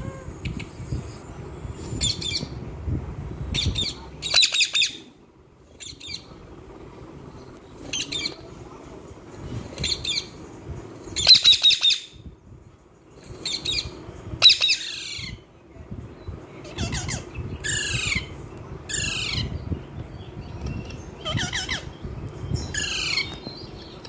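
Indian ringneck parakeets squawking: a long irregular run of short, harsh, high calls, roughly one a second. The loudest come about halfway through, and the later calls slide downward in pitch.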